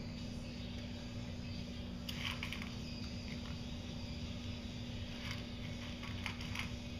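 A small dog eating dry kibble from a stainless-steel bowl: scattered crunches and clicks of kibble against the metal, in a short cluster about two seconds in, once around five seconds, and again just after six seconds.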